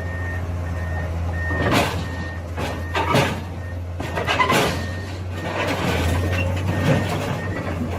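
A heavy truck's engine running steadily, its reversing alarm beeping for the first couple of seconds, then several sudden loud bangs.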